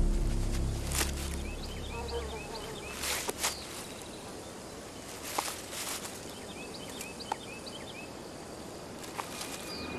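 Woodland ambience after a fading music cue: two short runs of quick, high chirps and a few sharp snaps or rustles over a steady background hiss.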